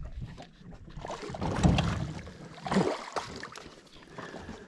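Hooked bass splashing at the surface beside a boat as it is reeled in, with two louder bursts of water noise, about a second and a half in and again near three seconds.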